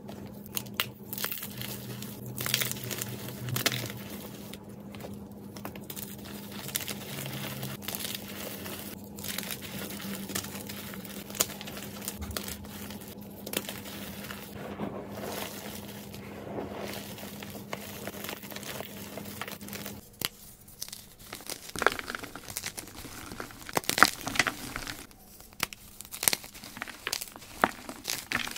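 Hands squeezing and crushing blocks of gym chalk in a bowl of loose chalk powder: a dense, soft crumbling and crunching with a faint steady hum beneath. About twenty seconds in the hum stops and the crunches turn sharper and louder as chalk blocks are snapped and broken apart.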